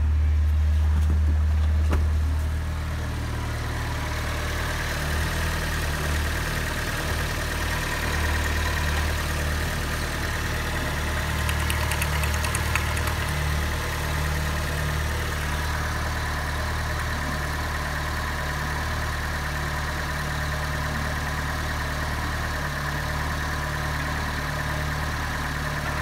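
Fiat Punto 2's 1.2-litre eight-valve four-cylinder petrol engine (188A4000) idling. It is louder and deeper for the first couple of seconds, then settles to an even, steady idle.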